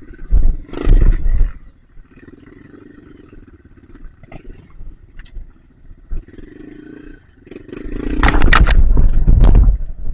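Trail motorcycle engine revved hard twice, briefly about a second in and again for about two seconds near the end, running low and steady in between. The sound is muffled by a rain cover over the camera.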